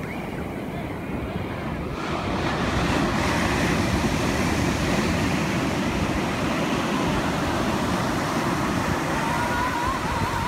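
Ocean surf breaking and washing up a sandy beach, growing louder about two seconds in as a wave breaks close to shore and then holding steady.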